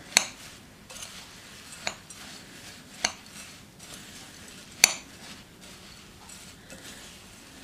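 A metal spoon stirring rolled oats in a glass bowl: a soft scraping rustle, with the spoon clinking sharply against the glass four times, loudest about five seconds in.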